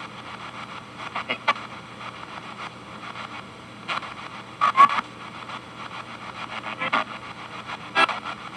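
P-SB7T spirit box sweeping up the FM band, played through a small guitar amplifier: steady static hiss and a low hum, cut by brief chopped fragments of broadcast audio every second or two. The loudest fragment comes about halfway through.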